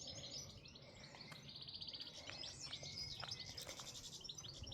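Several small birds chirping and trilling together, a busy chorus of quick repeated high notes.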